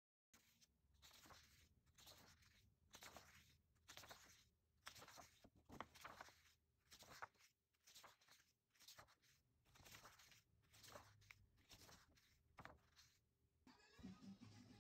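Faint scratching strokes, roughly one a second, like something rubbed or drawn across a surface by hand. Music comes in near the end.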